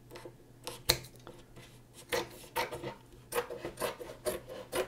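Scissors snipping through wet cotton watercolour paper, trimming the surplus edge while it is still soft. One sharp snip about a second in, then a run of quick snips, about three a second, from about two seconds on.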